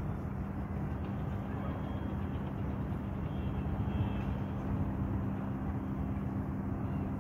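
Steady low machine rumble with a constant hum, a second higher hum joining a couple of seconds in, like an engine or motor running on a building site.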